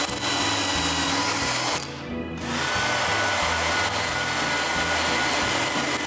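Power drill boring pilot holes into a wooden block, running steadily, easing off for a moment about two seconds in and then running again. Background music plays underneath.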